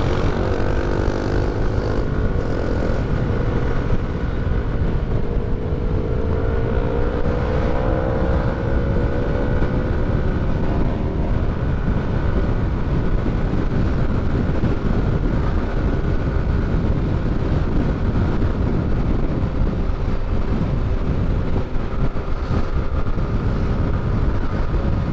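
Maxi-scooter engine running under throttle at road speed, its pitch climbing as it accelerates between about five and eight seconds in, then holding steady. A heavy low rumble of wind on the microphone runs underneath.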